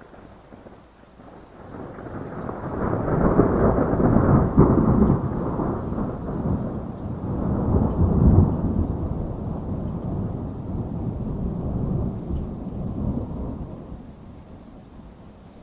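Rolling thunder over steady rain. The rumble builds from about a second and a half in, peaks twice, and dies away near the end, leaving the rain.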